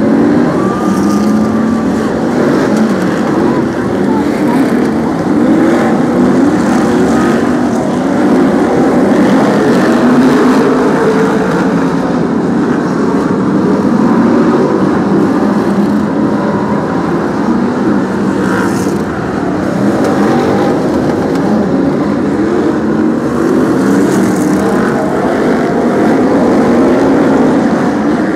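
A pack of BriSCA F1 stock cars' V8 engines racing around the oval, many engines at once. Their pitches rise and fall over one another as the cars accelerate and lift, with no let-up.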